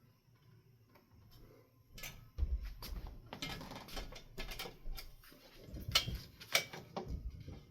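Irregular clicks, clatter and rustling of hands working on ceiling fan hardware, coming in bursts from about two seconds in.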